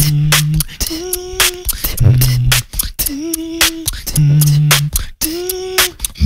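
Solo beatboxing into a microphone: a low bass note alternating about once a second with a higher held hummed tone, under a steady run of sharp snare and hi-hat clicks.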